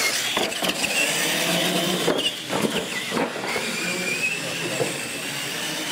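Electric RC monster trucks running flat out: high-pitched motor and gear whine over loud tyre hiss, with a few sharp knocks as a truck hits and lands off a ramp.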